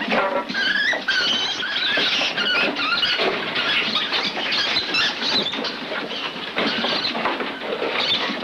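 Farmed mink squealing and chattering in high, wavering calls, with the rattle of wire-mesh cages being handled.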